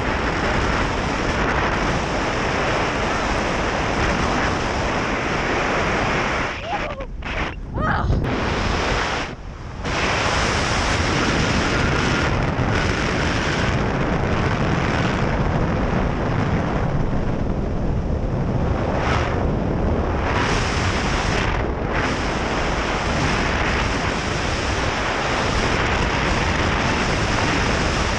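Loud, steady wind noise on the microphone during a tandem parachute descent under an open canopy. It drops out briefly about seven and ten seconds in.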